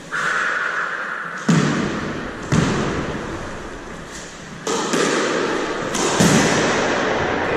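Squash ball smacking off racket and court walls: four sharp hits spaced one to two seconds apart, each ringing in the echo of the enclosed squash court.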